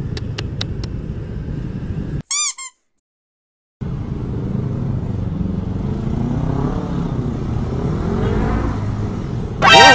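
Motorcycle engine running under road and traffic noise, its pitch rising as it accelerates in the second half. About two seconds in comes a short, high squeak with a wavering pitch, then a second of dead silence, and a brief loud pitched sound near the end.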